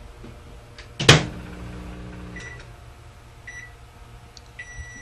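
Microwave oven: the door shuts with a sharp bang about a second in, a low hum runs briefly, then the keypad gives two short beeps and one longer beep near the end.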